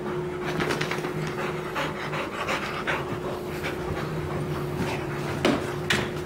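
Bullmastiff puppy panting in a run of quick, irregular breaths, over a steady low hum.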